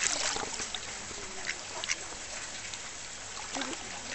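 Mallard ducks splashing and dabbling as they snatch bread from the lake surface, the splashing thickest in the first moment, with a few quacks.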